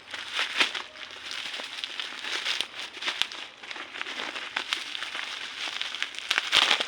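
Packaging being handled and unwrapped, crinkling and rustling with many irregular sharp crackles. It gets louder near the end.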